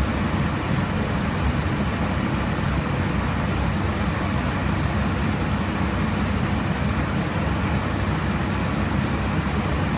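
Steady cabin noise of an airliner in cruise: an even low rumble of engines and rushing airflow, unchanging throughout.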